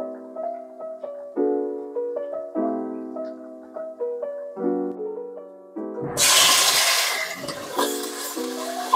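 Soft piano background music, chords struck about once a second. About six seconds in, loud sizzling starts suddenly: chicken livers frying in hot oil in a pot. The piano carries on faintly underneath.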